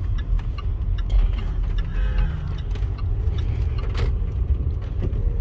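A car driving, heard from inside the cabin: a steady low road and engine rumble with scattered light clicks.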